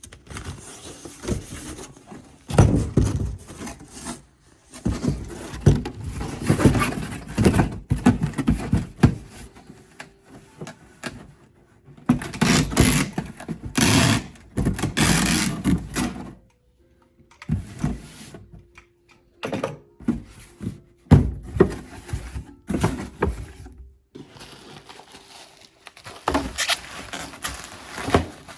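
Handling noises from packing a coffee maker for shipping: irregular rustling and scraping with sharp knocks, in stretches of a few seconds broken by short pauses.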